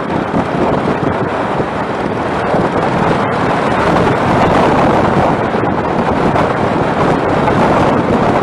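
Loud, steady wind noise buffeting the microphone, a dense rushing that swells a little about halfway through.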